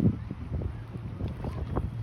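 Wind buffeting the microphone: an uneven low rumble with short gusty surges.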